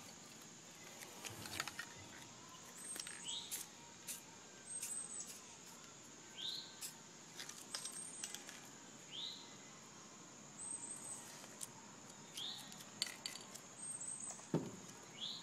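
A bird calling faintly, repeating a short high chirp every two seconds or so, with a few light clicks between calls.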